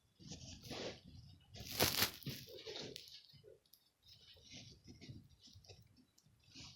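Rustling and crinkling from craft materials being handled, in irregular bursts, loudest about two seconds in.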